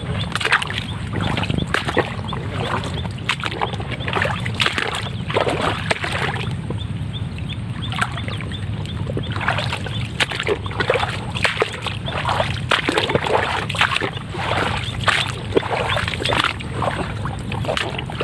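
Water splashing and sloshing in short irregular bursts over a steady low hum.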